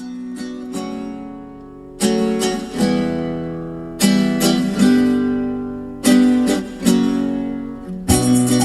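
Acoustic guitar music played back through a car audio system: slow strummed chords, a fresh strum about every two seconds, each left to ring. A bass line comes in near the end.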